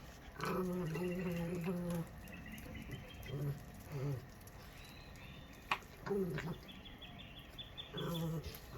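A dog whining and moaning in protest over food: one long, wavering whine, then several shorter ones. There are two sharp clicks around the middle.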